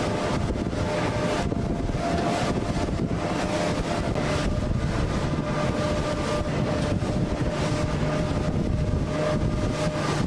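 Wind buffeting the microphone on open water, with a steady rush of water and a faint, steady whine.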